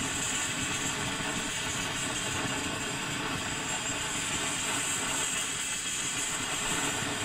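M1950 one-burner gasoline stove burning with a steady hiss. It is still warming up after priming, with a flickering yellow flame.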